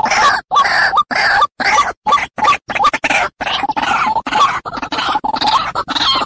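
White-breasted waterhen (ruak-ruak) calling: a long unbroken series of short, rough calls, about two a second, played as a trappers' lure call to draw waterhens in.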